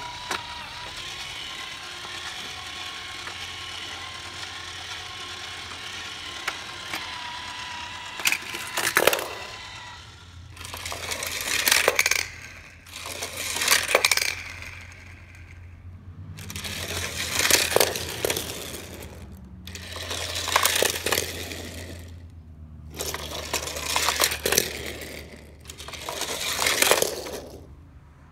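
Die-cast toy trains and cars rolling and rattling on hard plastic play-set track, heard as six separate runs of a couple of seconds each that build and then stop. Before them, for about the first eight seconds, there is a steady hum with a faint wavering tone.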